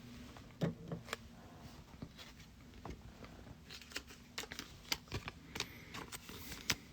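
Trading cards being handled and set down: scattered light clicks and taps, coming more often in the second half, with a soft rustle of card stock near the end.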